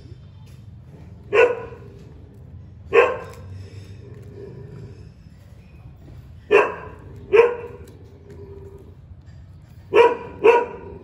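A dog barking six times in single, sharp barks spaced a second or more apart, the last two close together.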